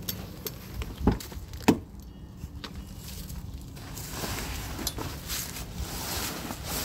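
Two sharp knocks about a second in, then a rising rustling and handling noise as a pickup truck's rear door is opened.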